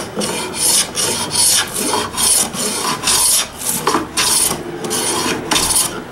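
Japanese hand plane (kanna) taking quick, short shavings off a hardwood board: a run of scraping strokes, about two to three a second.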